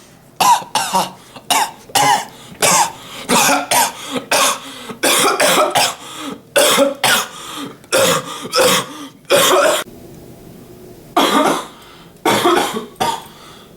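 A man coughing over and over in short, separate coughs, one or two a second. The coughing stops for about two seconds near the end, then starts again with a few more.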